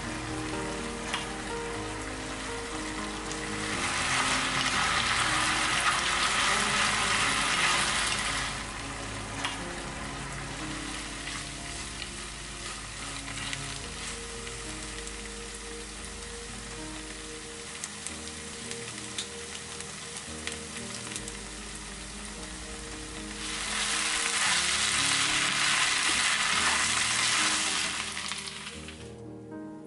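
Kimchi fried rice sizzling in a nonstick frying pan while it is stirred and scraped with a utensil, with scattered ticks of the utensil on the pan. The frying swells loudly about four seconds in and again near the end.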